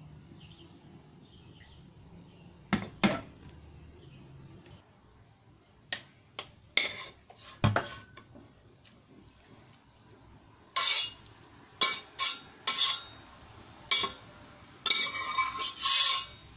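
Metal spoon clinking and scraping against a stainless-steel pot while curry is served into a ceramic bowl: a few scattered clinks at first, then a run of louder clanks in the last six seconds.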